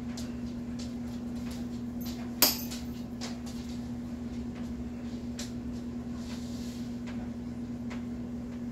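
Small taps and clicks of painting tools handled at a table, a paintbrush against a glass paint dish and being set down, with one sharp click about two and a half seconds in. A steady low hum runs underneath.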